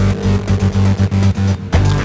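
Electronic background music with a beat. Its held tones stutter on and off rapidly, then cut out briefly near the end before the track comes back in.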